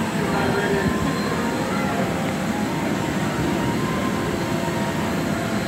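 Electric air blower of an inflatable bouncy castle running steadily, a continuous rumbling whoosh of air, with faint voices in the background.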